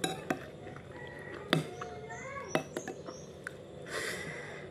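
Metal spoon clicking against a ceramic bowl several times, the sharpest strike about a second and a half in, with a few short rising chirps near the middle.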